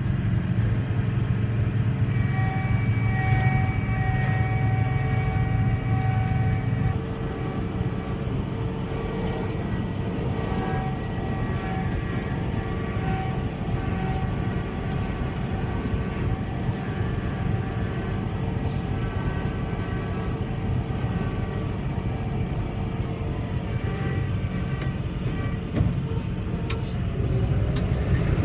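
Heavy farm machine's diesel engine running steadily under a harvest workload, with steady whining tones above its low hum. The sound drops a little about seven seconds in and grows louder again near the end.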